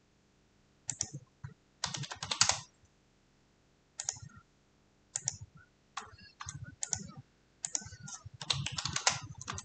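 Computer keyboard typing: short, irregular bursts of keystrokes with brief pauses between them.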